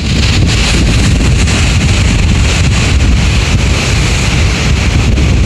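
Wind buffeting the microphone in a steady, loud rumble, over the wash of Pacific Ocean surf.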